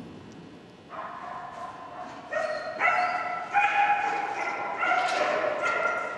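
Dog giving high-pitched, excited yips and whines while running an agility course, starting about a second in. The cries are held and run into one another, stepping up and down in pitch and growing louder.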